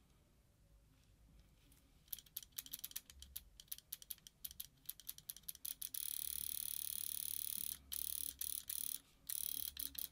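Dangerous Power electronic paintball marker with a Threshold board, its solenoid firing under trigger pulls. It starts as a fast, uneven string of clicks about two seconds in and becomes a near-continuous rapid clatter from about six seconds in, with two short breaks. The board is set with dip switch 3 down: eyes off, unlimited rate of fire.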